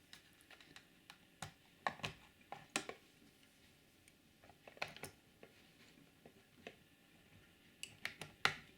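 Irregular light clicks and taps of plastic spatulas prying at the clips of a model railcar's plastic body shell, with a few louder clicks near the start and near the end.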